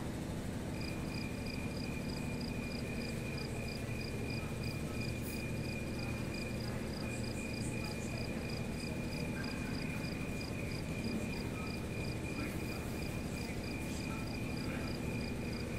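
Crickets chirping: a steady high trill, broken once for a moment, with a higher chirp pulsing about four times a second, over a low room hum.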